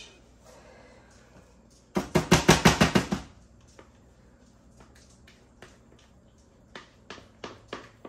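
A utensil rapped quickly against a mixing bowl, about ten sharp knocks in just over a second, knocking thick quick-bread batter out into a loaf pan. A few lighter taps and scrapes of the bowl follow near the end.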